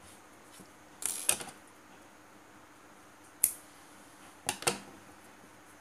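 Sharp small clicks of metal scissors and a yarn needle being handled on a wooden tabletop: a quick cluster about a second in, a single click partway through, and two close clicks near the end.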